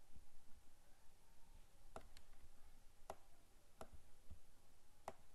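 Faint computer mouse clicks: a quick pair about two seconds in, then single clicks roughly a second apart, as a picture is dragged and dropped in a document.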